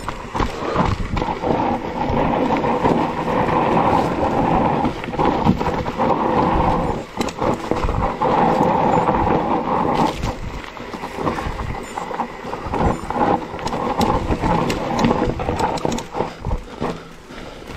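Mountain bike descending a rough trail: a continuous rumble of wind and tyres on dirt and stones, with frequent sharp knocks and rattles from the bike over bumps.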